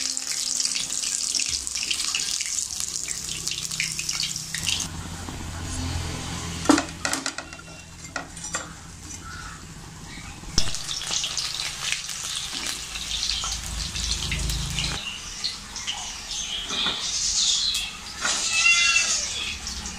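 Chicken pieces deep-frying in hot oil in a steel kadai, a steady sizzling hiss. About five seconds in the sizzle drops away, leaving a low hum and a couple of sharp knocks, and then the sizzle comes back.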